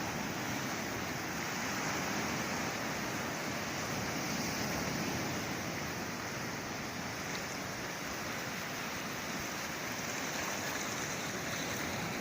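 Sea waves washing ashore in a steady, continuous rush of surf, swelling and easing gently.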